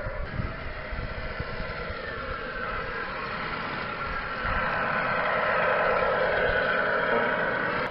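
Radio-controlled 1/14-scale model truck running, a steady engine-like drone that grows louder about halfway through.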